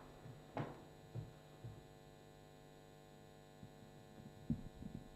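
Faint steady electrical mains hum, with a few soft knocks: three about half a second apart in the first two seconds and a small cluster near the end.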